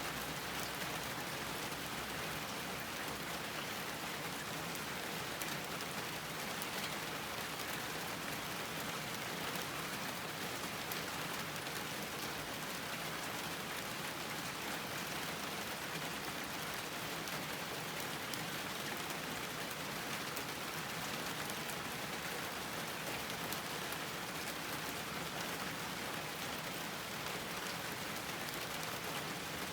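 Steady rain falling on a garden, an even hiss of many drops with fine scattered patters.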